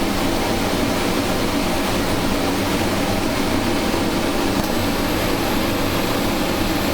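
Steady hiss of a Delta Elite multi-jet propane hand torch burning at full flame while heating glass. A faint, thin high whine joins about two-thirds of the way through.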